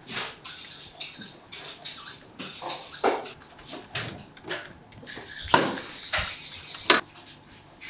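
Irregular knocks and clattering, the sharpest about three, five and a half and seven seconds in.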